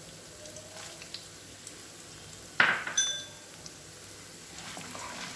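Peanuts and tempering spices (urad dal, cumin, mustard seeds) sizzling faintly in hot oil in a pan. About two and a half seconds in there is one sharp metallic clink that rings briefly, with small crackles near the end.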